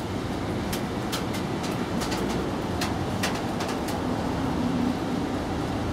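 Steady outdoor background rumble, with a quick, irregular run of about a dozen sharp clicks from about one to four seconds in.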